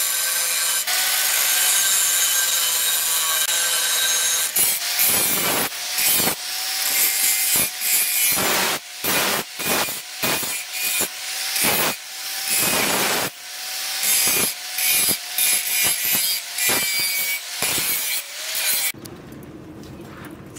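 Electric angle grinder grinding a steel knife blade: a steady high whine and rasp for the first few seconds, then a run of short passes, one to two a second, the motor's pitch dipping under each bite. Near the end the grinding stops abruptly, leaving a quieter low hum.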